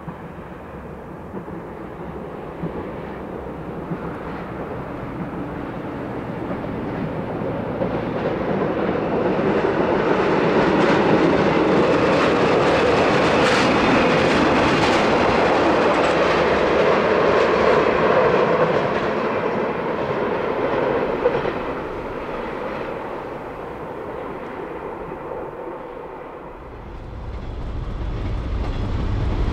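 DD51 diesel-hydraulic locomotive with a hopper wagon passing close: its diesel engines run and its wheels clatter over the rail joints, growing louder to a peak about halfway through and then fading away. Near the end a low rumble takes over.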